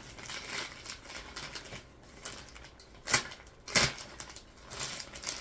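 A plastic bag inside a shipping box being handled and opened by hand: scattered rustling, with two sharp snaps about three and almost four seconds in.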